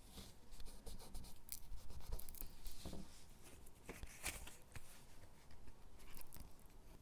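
Close-miked handling of paper stickers on paper cutouts: a quick run of small clicks, crinkles and light rustling, busiest in the first few seconds and thinning out near the end.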